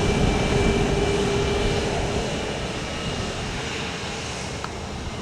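Airbus A321XLR's jet engines running at taxi power, a steady rushing noise with a whine that fades out about two seconds in as the overall sound slowly dies down.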